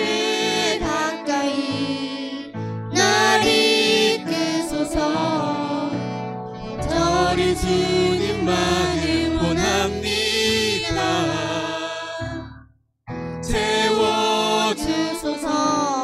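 Worship team singing a Korean-language praise song in phrases, a woman and a man leading on microphones, over acoustic guitar, violin and keyboard. The sound drops out for a split second about three-quarters of the way through.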